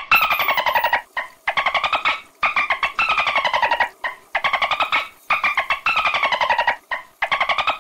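Dolphin burst-pulse chatter: rapid trains of clicks that merge into squawking calls, each falling in pitch over just under a second, repeated again and again with short pauses between.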